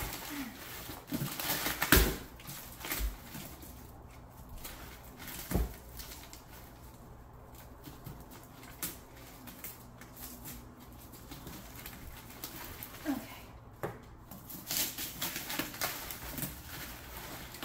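Scattered knocks, taps and rustles of a gift package being handled and opened by hand, with a denser run of small clicks near the end.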